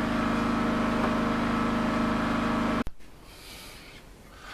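A workshop machine's electric motor running with a steady hum. It cuts off abruptly about three seconds in, leaving quiet room tone.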